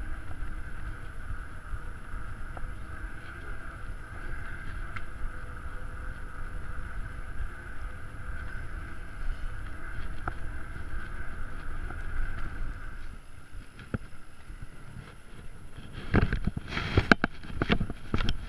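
Mountain bike rolling over stone paving with wind on the handheld camera's microphone: a steady rushing noise that eases off about two-thirds of the way through as the bike slows. Near the end, a quick cluster of knocks and clicks as the bike comes to a stop.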